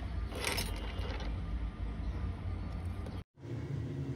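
Steady low hum of bench equipment, with a short scraping rustle about half a second in. The sound cuts out abruptly a little after three seconds and returns as a slightly different steady hum.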